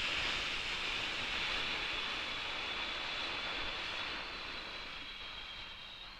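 Breathing sound effect of a long exhale: a steady hiss of air, breathy and strongest in the upper range, that slowly fades. It is the eight-count out-breath of 4-7-8 breathing.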